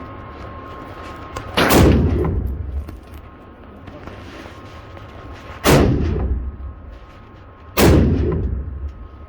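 Three gunshots, the second about four seconds after the first and the third about two seconds later, each followed by a brief rolling echo: a shooter firing a three-shot group at a target.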